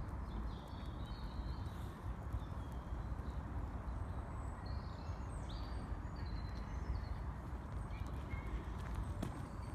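Steady outdoor background noise, mostly a low wind rumble on the microphone, with a few faint high bird chirps.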